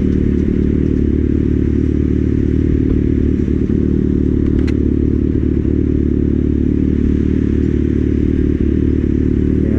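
Kawasaki Ninja ZX-6R's inline-four engine running at a steady pace on the move, under loud wind rush on the microphone.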